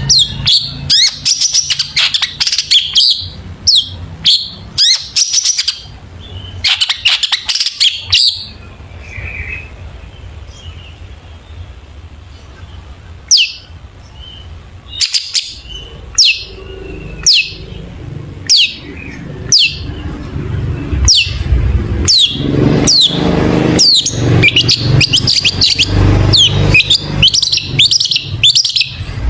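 Long-tailed shrike (cendet) singing a fast, varied song of sharp downward-sweeping chirps and mimicked calls, dense at first, thinning to single chirps about once a second in the middle, then dense again near the end. A low hum builds up underneath in the second half.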